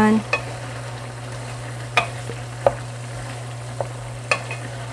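Wooden spoon stirring chicken, potato and carrot stew in a nonstick frying pan, knocking sharply against the pan about five times, over a low sizzle and a steady low hum.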